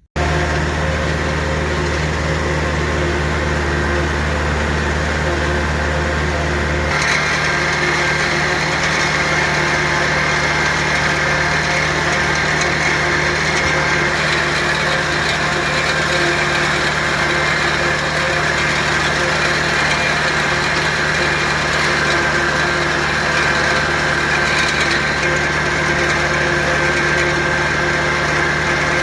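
Farm tractor engine running at a steady speed. About seven seconds in the deep low hum drops away and a higher whine comes up, then it holds steady.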